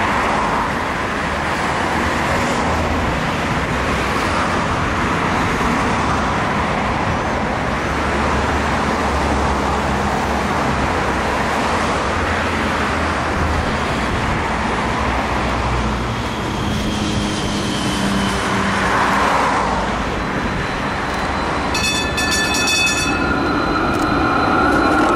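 Variobahn low-floor tram waiting at a stop under steady street and traffic noise. About 22 seconds in, a bell-like ringing signal sounds briefly, and the tram then pulls away past with the whine of its electric drive.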